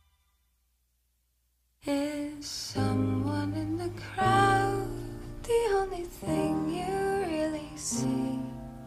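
Silence for about two seconds, then a song starts suddenly: a singer over guitar accompaniment.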